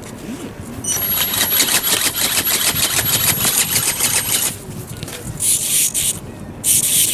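Small RC flapping-wing ornithopter in flight: its Turnigy 1811 brushless motor and reduction gears give a high steady whine while the film wings beat in a rapid, regular flutter, for about three and a half seconds before the motor cuts off. Then two short bursts of hiss.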